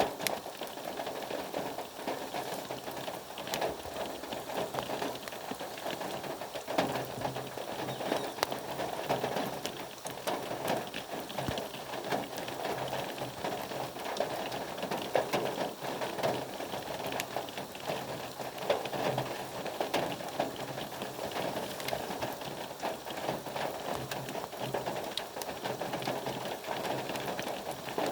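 Steady rain, a dense even patter of drops hitting a surface with many small ticks.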